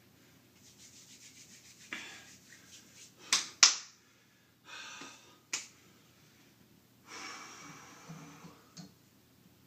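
A man breathing hard after heavy lifting, with two long breaths, and several sharp clicks, the loudest about three and a half seconds in.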